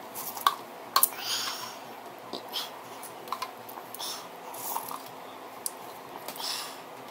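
A spoon clicking and scraping against a bowl while ice cream is eaten, with scattered sharp clicks and a few short slurps or gulps.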